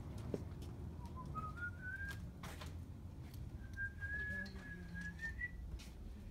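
A person whistling. There are two notes: the first climbs in small steps about a second in, and a higher one is held for about two seconds and lifts slightly at its end. A low rumble and a few light knocks sit underneath.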